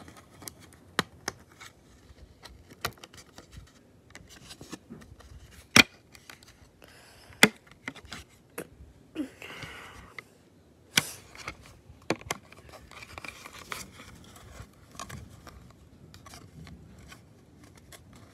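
Phone case being pried off a phone by hand: irregular plastic clicks and scraping, with a few sharper, louder snaps around the middle.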